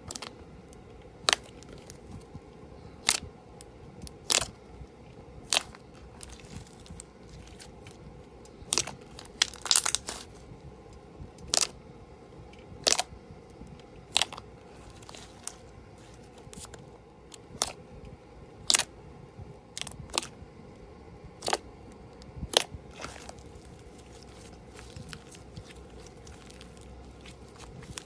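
Slime being squeezed and pressed, giving sharp crunching crackles about once a second, some coming in quick clusters.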